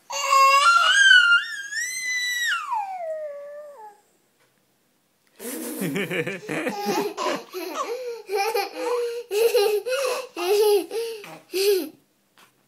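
A young child's long, high-pitched squeal that climbs and then slides down, followed after a short pause by a baby laughing in quick repeated bursts, giggling hard for about six seconds.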